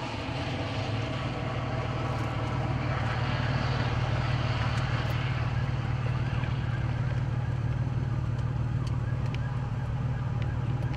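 Rear-flank downdraft wind, a steady rushing noise with a low hum beneath it, swelling a little over the first few seconds. A few faint clicks come near the end.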